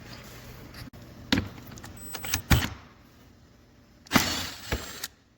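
Metal clanks and knocks of hand tools and hardware while the support bracket under an ATV fender is unbolted: a few sharp knocks, then a longer rattling scrape about four seconds in.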